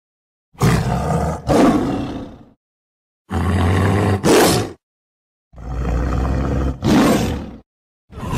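Lion roaring in three separate calls of about two seconds each, each ending in a shorter second surge, with a fourth call starting at the very end; total silence between the calls.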